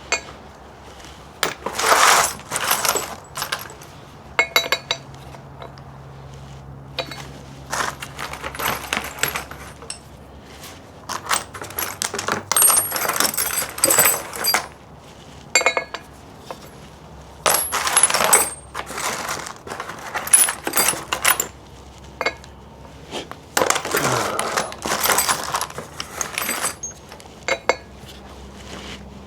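Metal tools and small metal parts clinking and rattling as they are handled, in repeated short bursts with some bright ringing strikes.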